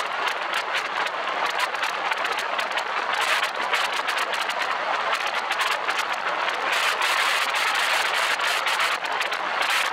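Wind rushing over the microphone of a roof-mounted camera on a moving vehicle: a steady hiss broken by rapid crackling buffets.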